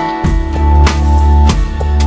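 Background music with drums and bass keeping a steady beat.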